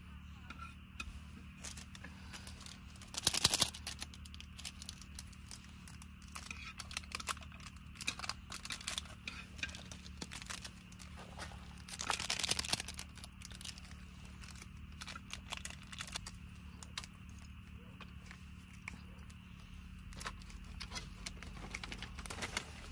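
Crinkling and rustling with scattered small clicks, as of material being handled. It is louder briefly about three seconds in and again about twelve seconds in, over a steady low hum.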